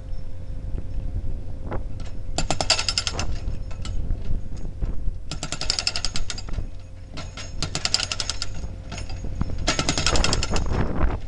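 Kent KF 4 FSP hydraulic breaker on a Cat 303 CR mini excavator hammering concrete wall panels in several bursts of rapid strikes with short pauses between, over the steady running of the excavator's diesel engine.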